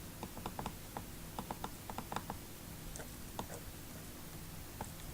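Computer keyboard and mouse clicks in irregular quick clusters, most of them in the first half, with a few single clicks later, over a faint steady low hum.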